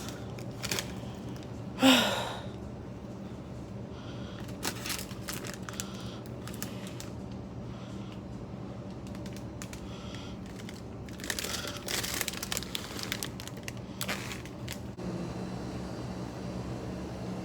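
Plastic snack packets crinkling and rustling as they are handled, with scattered clicks, over a steady low hum. A brief vocal sound about two seconds in is the loudest moment.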